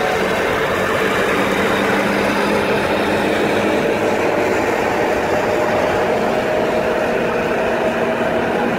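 Steady rush of wind and tyre noise from an electric scooter ridden at about 50 km/h with the throttle held at maximum, with a faint steady whine from its 1000 W brushless DC motor. It is picked up by a phone in the rider's pocket.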